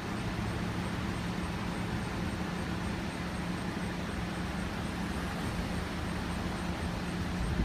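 Steady low mechanical hum and rumble with a constant noise over it, unchanging throughout, with a faint high ticking about four times a second.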